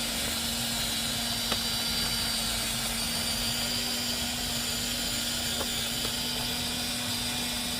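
A small electric motor running steadily, with a constant hum under an airy hiss and a few faint clicks.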